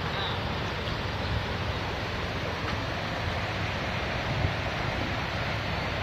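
Steady rushing of water running over rocks in a shallow stream.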